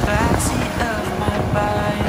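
Background music with a gliding melody line, over a low, steady rumble of motorboat engines.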